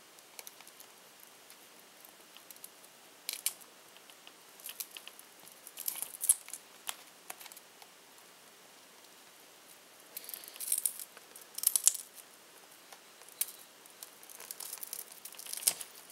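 Scattered sharp clicks, scrapes and brief crackles of a metal-tipped prying tool working under the edge of a Nexus 7's cracked touchscreen glass, prying it off its adhesive. There is a denser run of crackling about ten to twelve seconds in.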